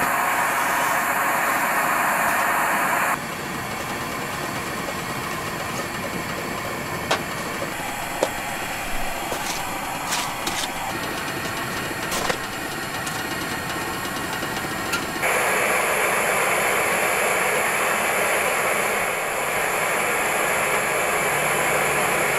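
Petromax HK500 kerosene pressure lantern burning with a steady loud hiss. After about three seconds it gives way to a quieter stretch with a few sharp cracks from the wood-burning stove, and the hiss returns about fifteen seconds in.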